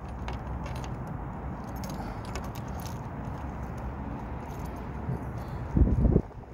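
A key ring jangling, with faint clicks, as a key is worked in the frozen door lock of a 1972 Lincoln Mark IV that will not turn. A brief, loud, low-pitched sound comes near the end.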